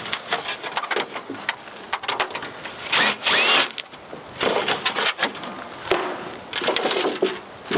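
Hands and tools working on a wooden chicken brooder: irregular knocks, clicks and rasping scrapes of metal on wood as pins are worked loose. The loudest scrape comes about three seconds in.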